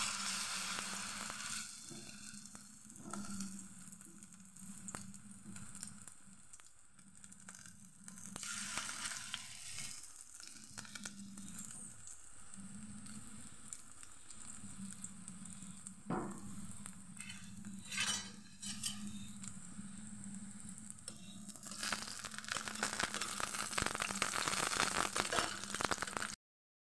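Batter-coated whole pumpkin flowers sizzling as they fry in shallow oil in a pan. The sizzle swells louder for a while partway through and again near the end, with a few sharp clicks in between and a low steady hum underneath.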